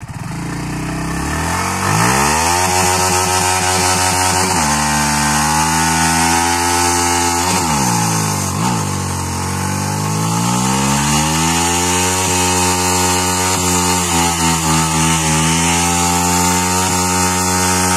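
Yamaha R15 V3's 155 cc single-cylinder engine held at high revs in a full-throttle burnout, the rear tyre spinning in sand. The revs climb over the first two seconds, dip briefly about four and a half seconds in, then drop sharply near the eight-second mark before climbing back and holding high with a slight waver.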